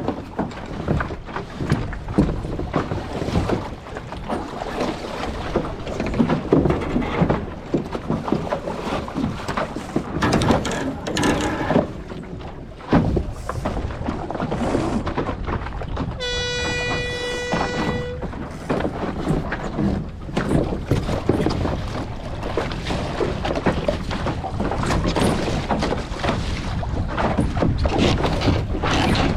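Wind buffeting the microphone and water rushing along a hull while sailing, gusty and uneven. Just past the middle, one steady horn blast about two seconds long sounds over it.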